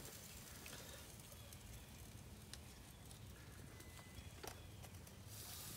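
Near silence: faint crinkling and a few small clicks of an aluminium foil packet being handled on a gas grill's grate.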